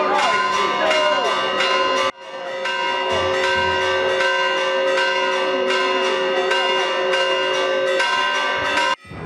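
Church bells ringing a rapid festive peal, struck about four times a second, several steady bell tones sounding over one another. The sound cuts out abruptly for a moment about two seconds in and again near the end.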